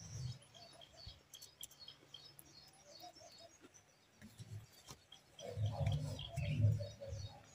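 Small birds chirping repeatedly in the background. About five and a half seconds in, a louder, low, muffled sound close to the microphone comes in for nearly two seconds.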